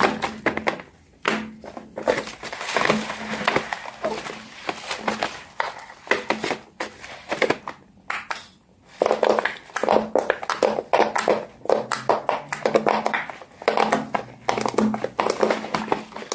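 Silicone pop-it fidget toys being handled and their bubbles pressed by fingers: quick, irregular pops and clicks with short pauses in between.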